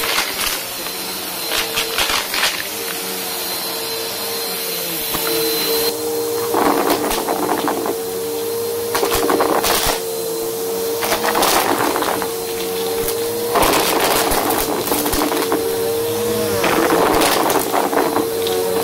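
Bissell bagless upright vacuum cleaner running with a steady motor whine over shag carpet, picking up dry cereal and candy pieces. About five bursts of crunching and rattling come through as the pieces are sucked up.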